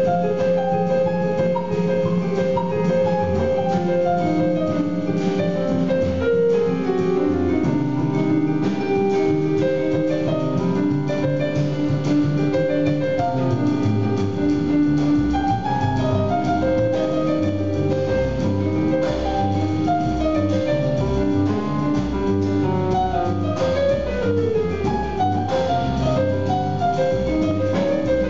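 Live jazz piano trio playing: acoustic piano running melodic lines over drum-kit cymbals, with upright double bass. From about halfway the bass settles into a steady run of low, evenly paced notes.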